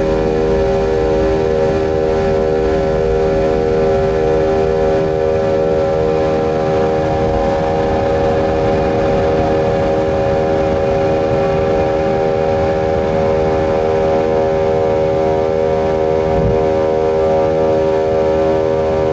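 McDonnell Douglas MD-90's rear-mounted IAE V2500 turbofans at takeoff thrust, heard from an aft cabin seat: a loud, steady, multi-tone engine buzz. Low rumble from the takeoff roll thins out after liftoff.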